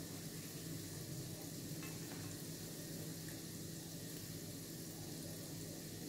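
Rosquillas (ring doughnuts) frying in hot oil in a pan, a steady sizzling hiss with a low hum underneath.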